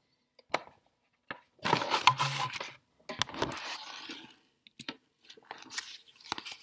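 Rustling handling noise in two stretches of about a second each, with scattered sharp clicks close to the microphone.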